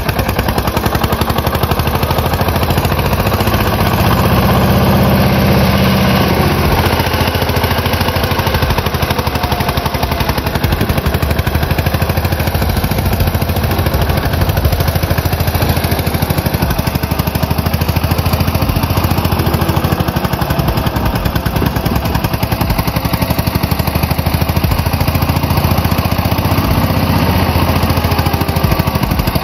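Farm tractor's diesel engine running hard under load in wet mud, failing to pull free. The engine is loud and steady and gets heavier a few seconds in.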